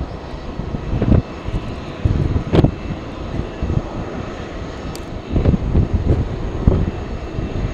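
Jet airliner engine noise with strong gusty wind buffeting the microphone in irregular low rumbling surges.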